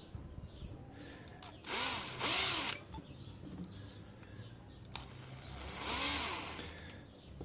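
Handheld electric drill run in two short bursts, its motor speeding up and slowing down each time while drilling into a lock. There is a sharp click between the two bursts.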